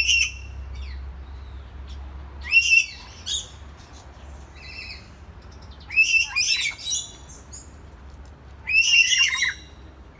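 A bird calling in short bursts, four of them about three seconds apart, over a faint steady low hum.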